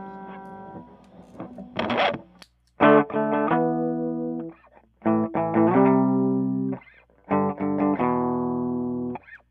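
PRS SE Custom electric guitar played through a Power2 fuzz pedal into a Fender Blues Junior amp. A few quiet notes are followed by three loud fuzzed phrases, each struck with a few quick strums, held ringing for about a second and a half, then choked off.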